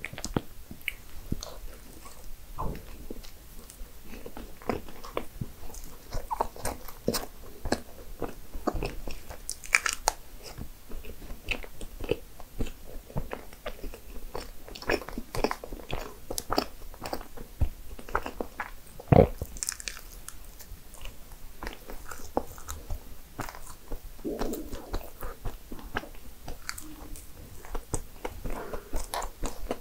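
Close-miked eating: biting and chewing of cream-filled pastries and cupcakes, with irregular crisp crunches and small mouth clicks. One sharper, louder click comes a little past two-thirds of the way through.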